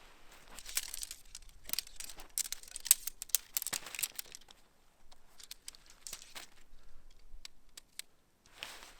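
Snow crunching and crinkling in irregular bursts of sharp clicks and rustles, busiest in the first half and thinning out, with one last rustle near the end.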